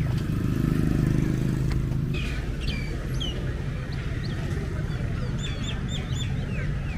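Steady hum of motor traffic on the road, loudest in the first two seconds as a vehicle goes by. From about two seconds in, small birds call over it in quick, short, hooked chirps, several in a row near the end.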